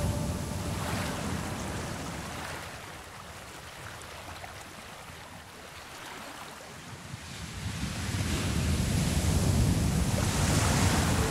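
Water noise on an underwater camera, quieter in the middle and swelling about eight seconds in as the camera is at the surface among choppy waves whipped by wind: a rough sea.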